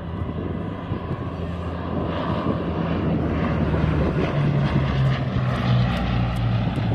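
Bristol Blenheim Mk I flying past, the drone of its two Bristol Mercury radial piston engines and propellers growing louder, with the engine pitch dropping about four seconds in as it goes by.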